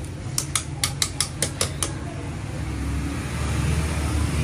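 A quick run of about nine sharp taps in the first two seconds, over a steady low machine hum that grows a little louder towards the end.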